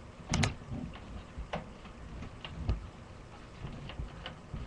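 Small clicks and taps of a screwdriver and screws being worked loose from a desktop computer's motherboard, with a sharp double click shortly after the start and scattered lighter ticks and knocks after it.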